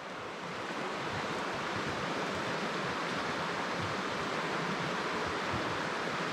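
Steady rush of flowing water, an even hiss without any breaks or distinct events.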